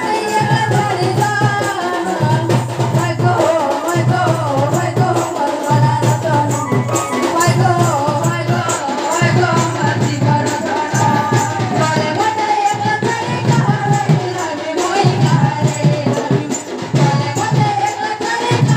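Live Sambalpuri folk music: a barrel drum beaten in a steady rhythm with rattling percussion, under a high, wavering melody line.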